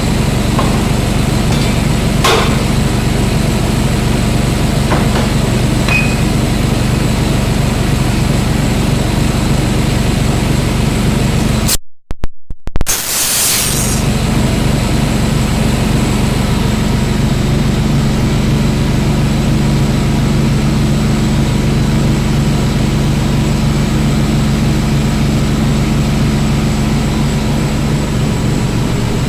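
A heavy engine idling with a steady low hum. A few faint clicks sound in the first several seconds, and the sound cuts out briefly about twelve seconds in, then picks up again unchanged.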